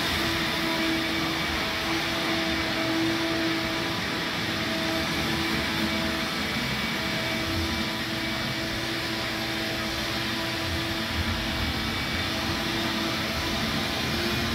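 A steady blowing machine noise, like a fan or blower, with a faint hum on top that drops in and out.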